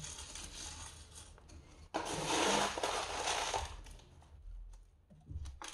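Coarse granite-grit potting mix crunching and scraping under gloved fingers as it is pressed down around a succulent in its pot. The crunching grows louder about two seconds in and fades out after about four seconds.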